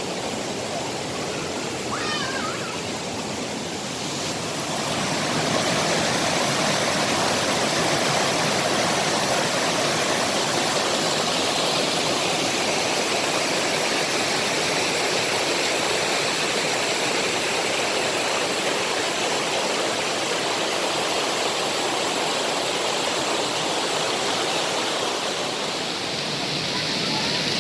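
Steady rush of water falling at a waterfall, which grows louder about five seconds in and then holds steady.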